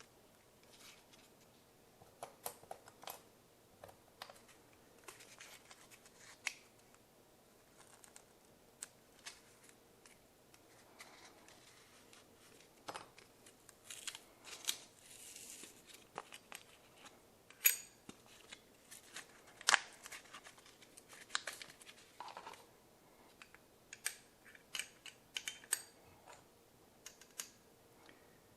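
Small parts of a Gast vacuum pump being handled and fitted by hand: scattered light clicks, taps and brief scrapes, with two sharper clicks a little past halfway.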